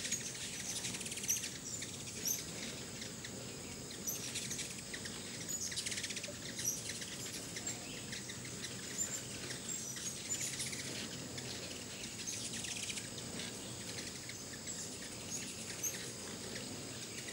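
A crowd of ruby-throated hummingbirds at a feeder: many short, high chips and bursts of twittering chatter, scattered irregularly throughout.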